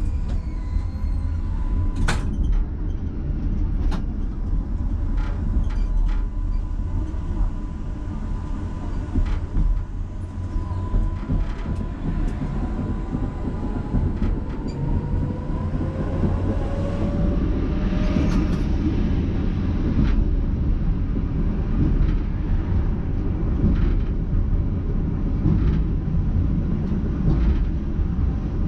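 Electric tram running along its track: a steady low rumble with irregular clicks and knocks from the wheels on the rails. The traction motors whine, and the whine climbs slowly in pitch through the middle of the stretch as the tram picks up speed.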